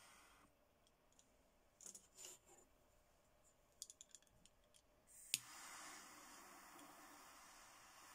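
Guevara twin-jet butane torch lighter: its jet flame hisses faintly and goes out about half a second in. A few light clicks and taps follow. Then a sharp ignition click a little past the middle, and the jet flame hisses steadily again.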